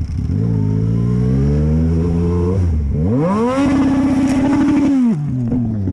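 Motorcycle engine accelerating: the revs climb for about two seconds, drop briefly at a gear change, then rise sharply and hold high before easing off near the end.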